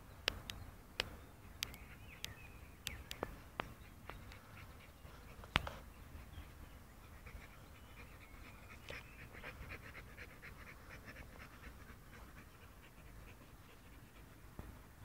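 A dog panting faintly, with a quick run of breaths through the middle. Several sharp clicks come in the first half.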